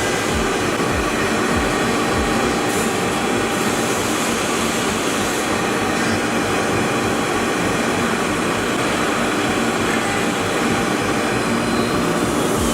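Woodworking milling machine for door and window frames running, a steady dense mechanical noise with several held tones.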